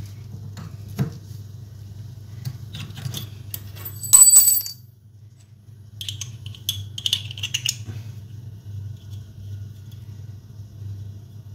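Copper pipe and brass compression fittings being handled: small clicks and scrapes, with one bright, ringing metallic clink about four seconds in. A steady low hum runs underneath.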